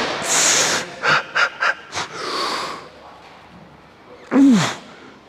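A man straining through a set of incline dumbbell biceps curls taken to failure. He breathes out hard with a hiss, then gives four short sharp puffs about a third of a second apart and a longer breath. Near the end comes a loud groan that falls in pitch.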